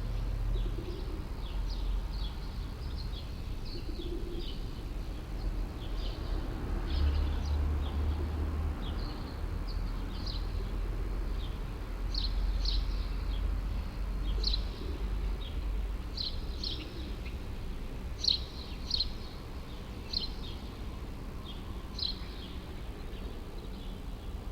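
Small birds chirping throughout in short, high, repeated notes, over a low, steady city rumble that swells briefly about seven seconds in.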